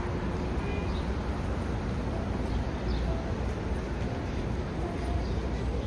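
City street ambience: a steady low rumble of traffic, with a few faint high chirps now and then.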